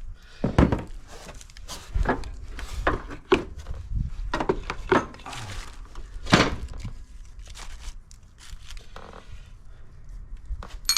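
Irregular knocks, clinks and thunks of hand tools and metal mower parts being handled and set down.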